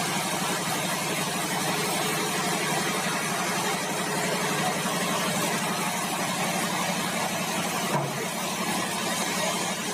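Sawmill machinery running steadily with a constant low hum, with a brief knock about eight seconds in.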